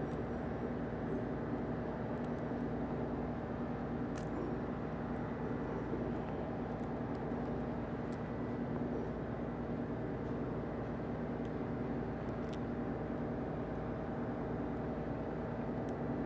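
Steady mechanical hum of a running machine, even in level throughout, with a few faint clicks scattered over it.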